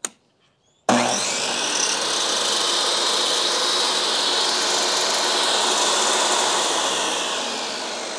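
Hercules 10-inch compact table saw switched on and running free with its 40-tooth blade and no wood being cut: the motor comes up to speed abruptly about a second in and runs with a loud, steady whine. The level eases slightly near the end.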